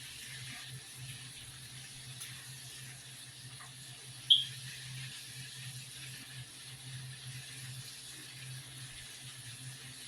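Faint steady hiss of chicken frying in a skillet over a low hum, with one short high squeak about four seconds in.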